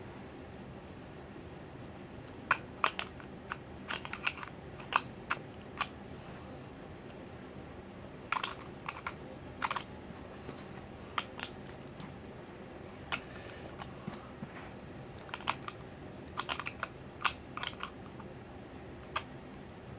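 Irregular sharp clicks and taps of small plastic toy pieces being handled, coming in clusters, with one short rustle a little past halfway.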